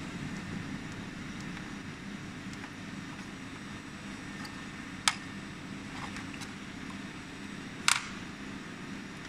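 Steady low machinery hum with light handling of the laser welding head and its tubing: two sharp clicks, one about halfway through and a quick double click near the end.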